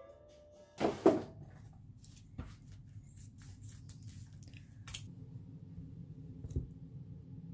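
A loud knock about a second in, then a plastic cheese packet crinkling and being snipped open with kitchen scissors, with a sharp snip near the middle. A knife then cuts into a block of halloumi and knocks once on the wooden chopping board, over a steady low hum.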